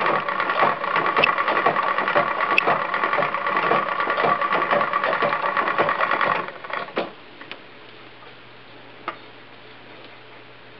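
1919 Singer No. 15 sewing machine running with a spinning wheel head attached, a rapid even mechanical clatter that stops suddenly about six and a half seconds in. A few light ticks follow.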